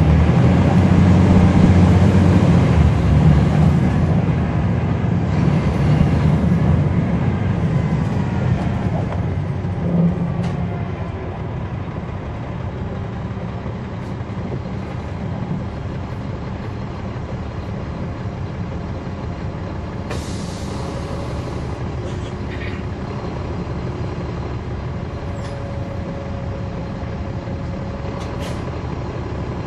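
Caterpillar C13 diesel engine of a 2009 NABI 416.15 transit bus heard from on board, pulling hard for about the first ten seconds with its pitch sliding, then dropping back to a steady, quieter running sound. A short hiss of air comes about twenty seconds in.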